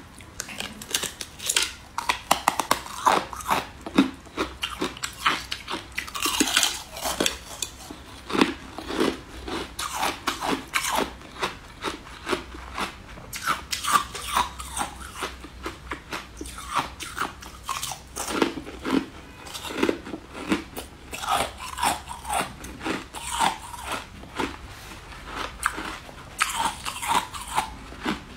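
Close-miked biting and chewing of a crunchy, translucent corn-cob-shaped candy: a continuous, irregular run of crisp crunches and crackles.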